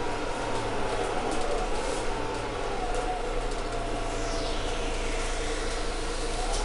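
Cabin noise inside a Mercedes-Benz Citaro G C2 articulated city bus under way: a steady rumble of drivetrain and road. A faint whine falls in pitch around the middle.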